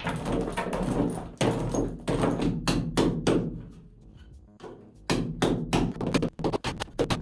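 Rusty iron ballast pieces being pried loose with a steel bar and handled into a metal bucket: rapid, irregular clanking and scraping of metal on metal, which eases off for about a second around the middle and then picks up again.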